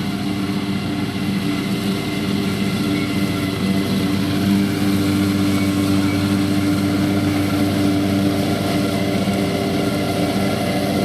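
BCS 749E walk-behind tractor's engine running steadily at a constant speed, driving a 38-inch bagging finish mower.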